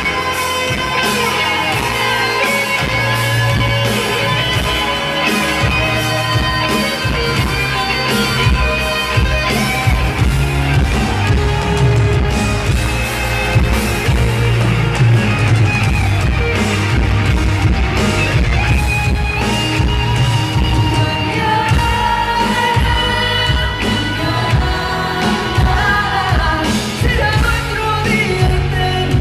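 Live Latin pop band playing with a steady beat, electric bass, electric guitar, keyboards and drums, while a woman sings lead into a microphone.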